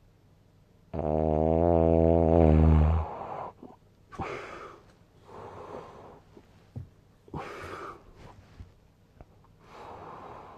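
A sleeping person snoring: one loud, pitched snore lasting about two seconds, starting about a second in, then four softer, breathy breaths.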